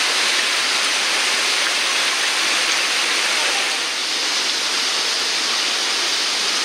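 Waterfall and cascades of a mountain torrent: a steady rush of falling water.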